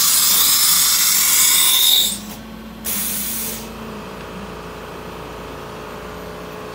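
Automatic tool change on an Anderson 5x10 CNC router: a loud hiss of compressed air lasts about two seconds as the spindle's pneumatic tool release blows out the holder. A shorter hiss comes about three seconds in, then the spindle spins up and runs with a steady tone.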